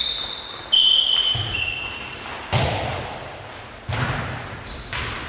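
An indoor football kicked and bouncing in a sports hall: about four sharp hits a second or so apart, each with a short ringing ping and a long echo off the hall walls.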